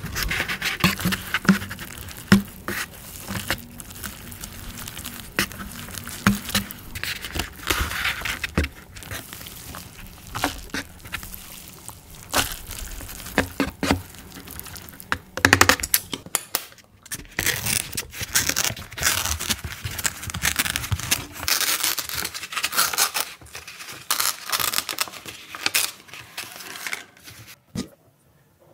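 Foil lids of instant cup noodles being peeled back and crinkled, with wooden chopsticks scraping and stirring the noodles in the cups: a dense run of crackles and sharp little clicks.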